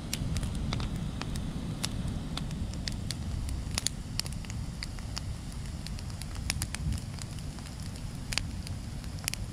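Campfire of dry branches burning vigorously: irregular sharp crackles and pops of burning wood over a steady low rumble.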